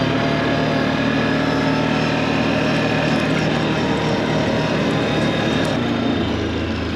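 A farm vehicle's engine running steadily under way, its note dropping near the end as it slows toward idle.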